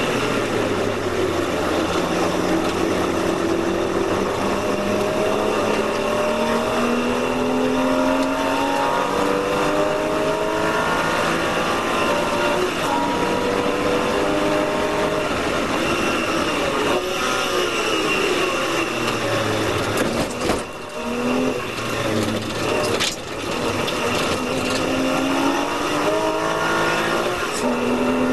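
Porsche race car engine heard from inside the cockpit at racing speed. The pitch climbs repeatedly as it pulls through the gears. About two-thirds of the way in it drops while braking, with two brief dips, then climbs again as the car accelerates out of the corner.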